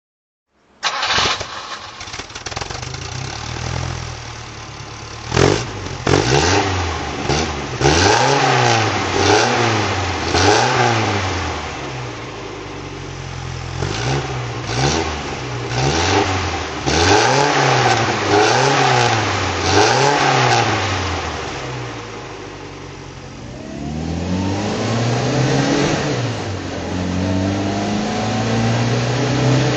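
1961 Fiat 1200 Pininfarina cabriolet's four-cylinder engine starting up about a second in. It then idles and is revved in a series of short blips that rise and fall in pitch, with one longer rev near the end before it settles at a fast idle.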